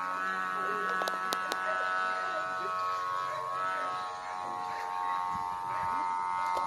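Sumba kite hummer buzzing in the wind on a flying airplane-shaped kite: a steady drone of many tones together that wavers slightly in pitch, with a few sharp clicks about a second in.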